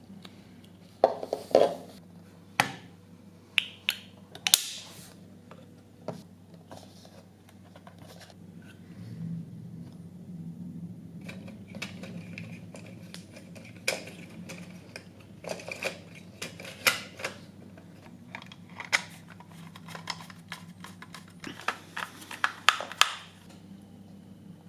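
Irregular sharp clicks and light metallic clinks of small model-car parts and hand tools being handled and set down on a work surface, in clusters near the start, in the middle and near the end, over a low steady hum.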